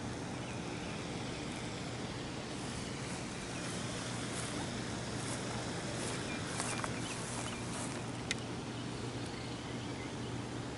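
Outdoor background: a steady low hum with faint bird chirps and a few sharp clicks, two close together about two thirds of the way in and one a little later.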